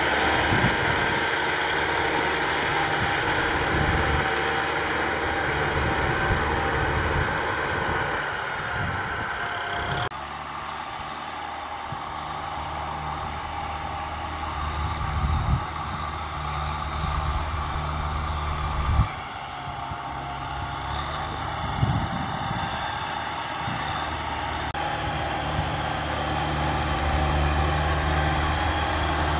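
Kubota M6040SU tractors' diesel engines running steadily under load as they drag and push wet soil, with a few short clunks.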